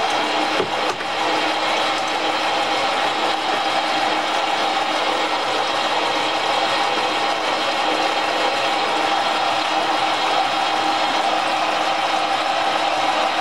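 Sieg SC4 lathe running at a steady speed, spindle and drive giving a constant whine while a short steel stud spins in the collet chuck, set up for facing its end.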